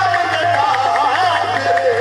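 Live qawwali music: harmoniums sounding a steady held note while the singers' voices glide and waver over it.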